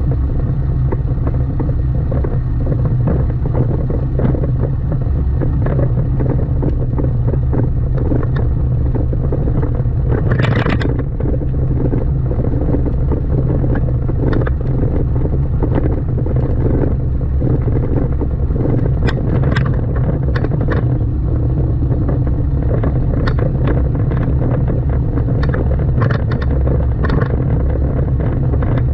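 Car driving, with a steady low engine and road rumble and scattered clicks and knocks over it. A brief, sharper noise cuts through about ten seconds in.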